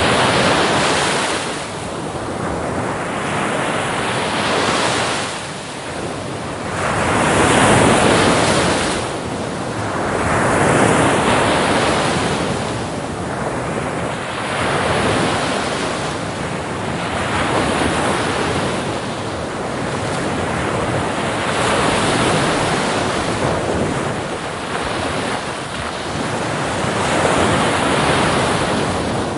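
Sea waves breaking on a shore, one after another every two to three seconds, each swelling to a hissing wash and then ebbing. Wind on the microphone runs underneath.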